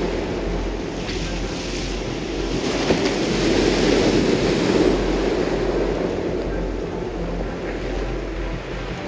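Sea waves breaking on a pebble beach, the surf washing up over the stones and swelling loudest in the middle. One short click comes a little under three seconds in.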